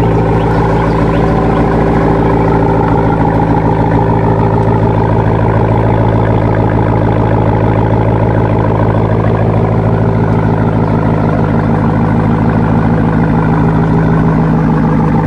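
A car engine idling steadily, a loud, even drone that holds unchanged.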